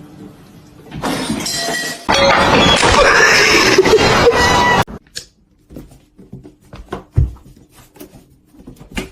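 Loud crashing and shattering noise, as of something breaking, building about a second in and lasting about three seconds before it cuts off suddenly, followed by scattered knocks and clinks and a sharp thump near the end.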